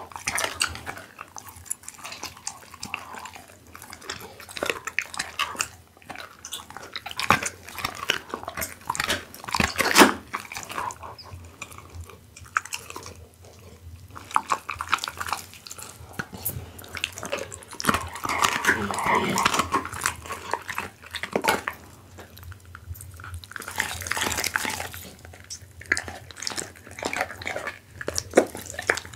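Pit bull chewing and gnawing a piece of raw beef held out to it, close to the microphone: a steady run of crunching bites and sharp clicks, the loudest snap about ten seconds in.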